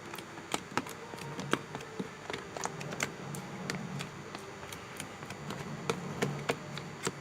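Irregular clicks and taps of a utensil against a bowl while stirring a slime mixture of white glue, water and hand wash as it thickens.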